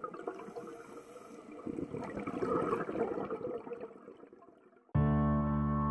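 Water bubbling and gurgling, swelling about two and a half seconds in and then fading away. A sustained ambient music chord starts suddenly about five seconds in.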